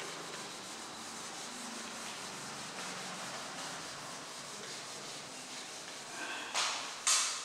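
Steady rubbing against a writing board, then two short, squeaky strokes near the end, the second the loudest.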